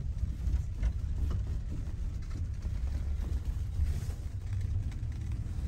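Steady low rumble of a moving gondola cable car cabin, heard from inside, with a few faint clicks.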